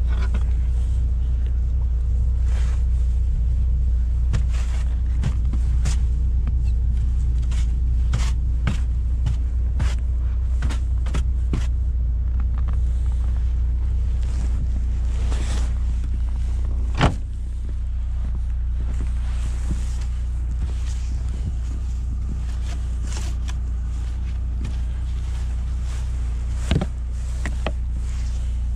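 Lada Niva Travel's 1.7-litre four-cylinder engine idling steadily while it warms up in the cold. Over it come scattered clicks and knocks of a snow brush being handled, and two sharper thumps, the loudest about 17 seconds in.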